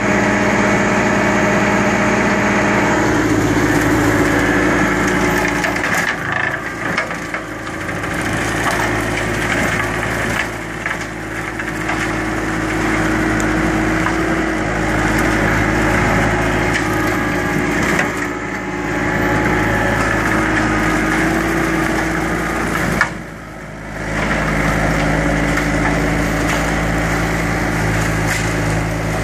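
Bobcat S300 skid-steer's diesel engine running steadily while its Brushcat rotary brush cutter chews through small pine trees, with wood crunching and splintering. The din sags briefly several times, most deeply for about a second around three-quarters of the way through.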